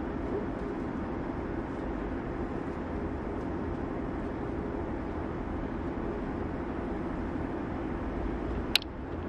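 Steady low rumble of outdoor background noise, with one sharp click near the end.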